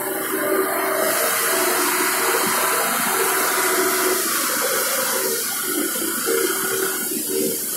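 Forklift with a paper-roll clamp lifting a heavy paper roll: a steady engine and hydraulic pump hum with a rushing hydraulic hiss as the mast raises, strongest in the first half.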